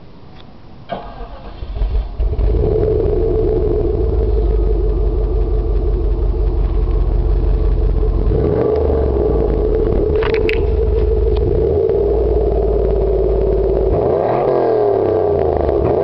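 1997 Cadillac Seville STS's 4.6-litre Northstar V8 heard at its dual exhaust tips, running through a Magnaflow high-flow catalytic converter and Flo-Pro mufflers. It starts up about two seconds in, settles into a steady idle, and is revved twice, once around the middle and again near the end.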